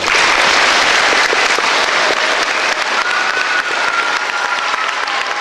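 Large audience of schoolchildren applauding, breaking out suddenly and holding steady.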